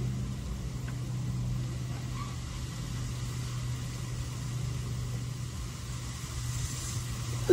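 A car engine idling steadily, a low even hum.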